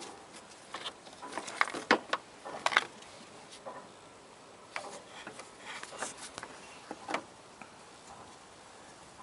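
Scattered sharp clicks, taps and rustles of objects being handled, densest in the first three seconds, with a few more clicks around five to seven seconds in.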